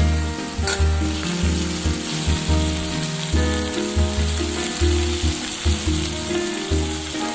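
Soya chunks in sauce sizzling in hot oil in a kadhai as they are stirred with a spatula, over background music.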